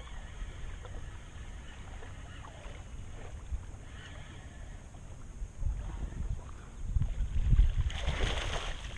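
Wind rumbling on the microphone over water lapping against a small fishing boat, gusting louder about two-thirds of the way through, with a brief rush of water noise near the end.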